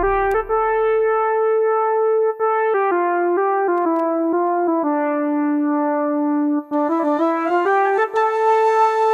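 Korg N364 keyboard playing a slow melody in long held notes with a brass-like tone, with short breaks between phrases. Near the end a flute joins in.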